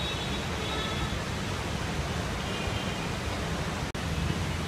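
Steady hiss of heavy rain, with faint high tones now and then and a brief break in the sound shortly before the end.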